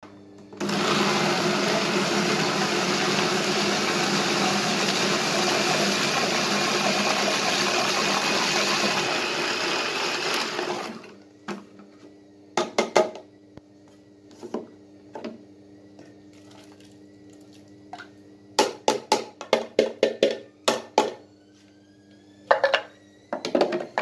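Small electric food chopper running steadily for about ten seconds while it purées tomatoes, then stopping abruptly. Afterwards come a scatter of short plastic clicks and knocks as the chopper's lid and bowl are handled and taken apart.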